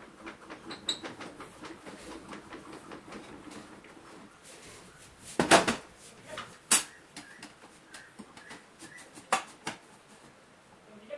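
Handling noises at a stopped table saw: light clicks and taps, a heavy knock about five and a half seconds in as a thick wooden block is set down on the metal saw table, and a few sharp taps later as a steel ruler is laid on the table against the blade.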